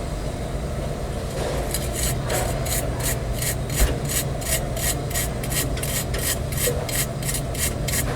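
Quick back-and-forth scraping strokes, about three a second, starting a couple of seconds in: a refrigerator thermostat's corroded electrical terminals being scrubbed clean. A steady low hum runs underneath.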